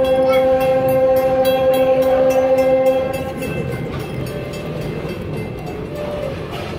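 A train's locomotive sounds one long warning blast for a road grade crossing, a steady single-pitched tone that stops about three seconds in. After it, the rumble of the moving train's wheels on the rails carries on.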